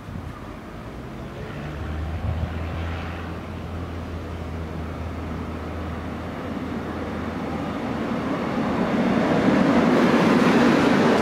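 Korail electric commuter train approaching and running in alongside the platform, its noise growing steadily louder over the last few seconds.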